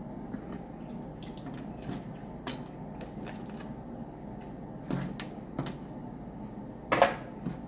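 Steamed crab and crawfish shells being cracked and picked apart by hand while eating, a series of scattered sharp clicks and cracks with one louder crack about seven seconds in.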